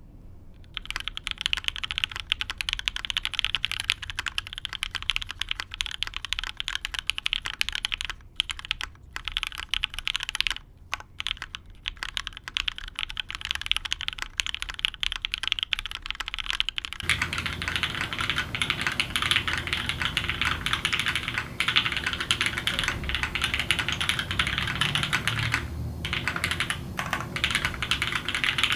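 Continuous typing on a custom mechanical keyboard: lubed Gateron Ink switches under GMK keycaps, on a UHMWPE plate with an O-ring mount, giving dense key clacks with a couple of brief pauses. About seventeen seconds in, the sound turns fuller with more low rumble as the recording moves from a studio microphone to the camera's built-in microphone.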